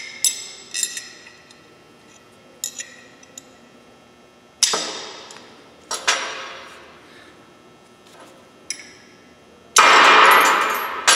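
Steel parts of a slickline X-lock mandrel clinking and knocking together as a steel rod forces the expander sleeve out of the key retainer against the key springs' tension. There is a string of separate sharp metallic knocks, several ringing out, and a loud burst of ringing clatter lasting about a second near the end.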